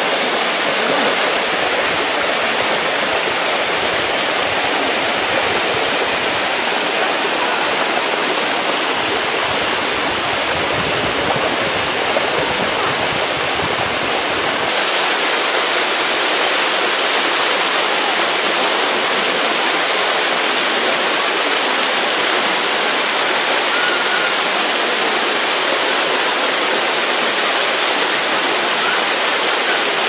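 Waterfall and a rushing river cascade: a steady, loud rush of falling water. About halfway through the sound shifts abruptly, losing some of its low rumble and turning brighter.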